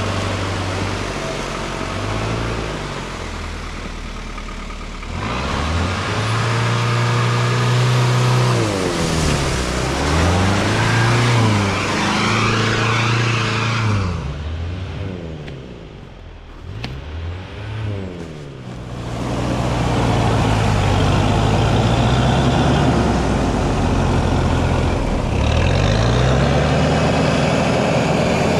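Off-road Daihatsu Rocky's engine revving up and down again and again as it pushes through deep mud and slush, with churning and splashing under the tyres. The engine drops quieter for a few seconds midway, then picks up again.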